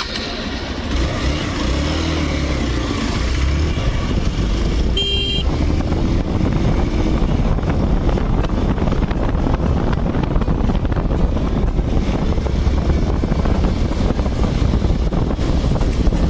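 Hero Xpulse 200 single-cylinder motorcycle engine running as the bike rides along, with heavy wind rush on the microphone; it builds over the first couple of seconds. A brief horn toot sounds about five seconds in.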